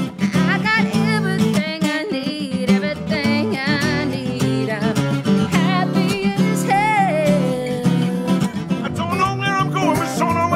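A woman singing a roots-blues song to her own acoustic guitar, strumming along, with vibrato on the long held notes.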